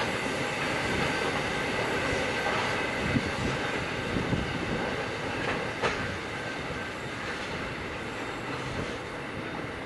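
Loaded grain hopper wagons of a freight train rolling past on a curve. The wheels clatter over the rail joints, with a thin steady wheel squeal and a few sharp clicks, and the sound grows a little quieter in the second half as the last wagons pass.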